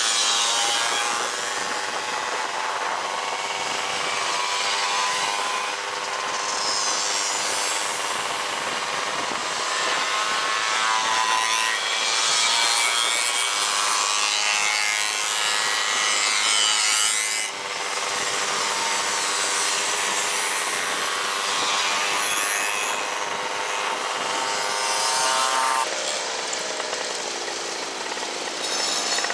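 Several small two-stroke moped engines buzzing at high revs, their pitch rising and falling with the throttle. The sound breaks off abruptly about halfway through and changes again near the end.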